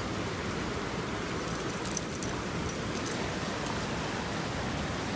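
Steady rush of a creek running high and fast with snowmelt and rain runoff, with a few brief, sharp high ticks about one and a half to three seconds in.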